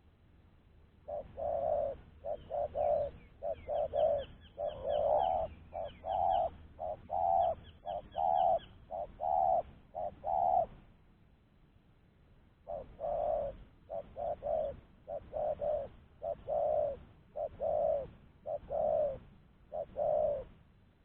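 Spotted dove cooing its repeated rolling song in two long bouts, with a short pause between them. Faint high chirps from a small bird come through during the first bout.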